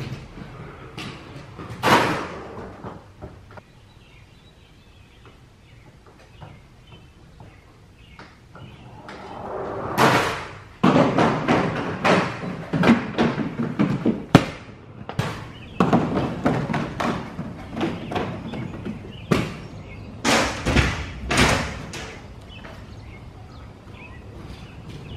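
Aggressive inline skates rolling on a concrete floor with scattered clicks and knocks. From about ten seconds in comes a long loud run of scraping and thuds as a skate grinds along the coping of a wooden grind box and lands, easing off a few seconds before the end.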